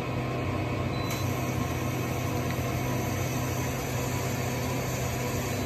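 Okuma Genos L3000-E CNC lathe running, its spindle turning the chuck with a steady hum. Coolant comes on about a second in and sprays against the enclosure window, adding a high hiss.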